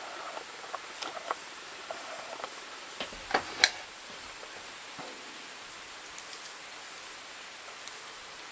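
Small metallic clicks and light scraping of a lock pick and tension wrench working the pins of a five-pin Viro padlock, with two sharper clicks a little over three seconds in.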